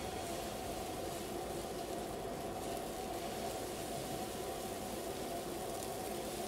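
Dosa batter hissing steadily as it is poured onto a well-heated dosa pan over a gas flame.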